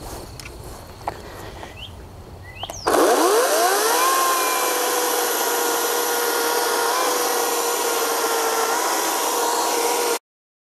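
Ryobi 40V 14-inch battery-powered electric chainsaw spinning up about three seconds in, its pitch rising quickly, then running at a steady pitch as it cuts through a log. The sound stops abruptly near the end.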